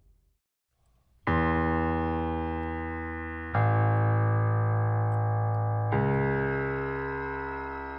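Background music: after a brief silence, sustained keyboard chords start, changing twice, each slowly fading.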